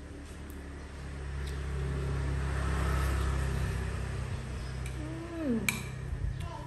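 A motor vehicle's engine passing by: a low hum that swells to its loudest about three seconds in, then fades. Near the end a spoon clinks sharply against a dish.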